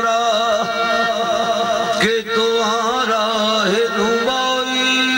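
Qawwali: a male lead singer singing a wavering, ornamented melodic line over the steady held notes of a harmonium, with a brief break about two seconds in.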